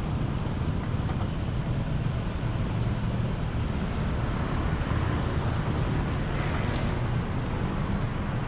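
Street traffic: a steady low rumble of cars and motorcycles moving along a town road.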